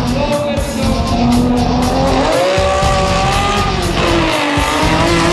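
Datsun 280Z race car's engine revving hard: the pitch climbs, drops back at a gear change, then climbs again. Background music with a steady beat runs underneath.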